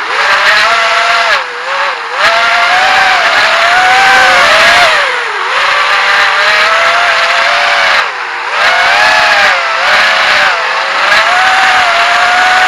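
GEPRC AX-5 racing quadcopter's brushless motors whining, the pitch rising and falling constantly with the throttle and dropping sharply a few times as the throttle is chopped.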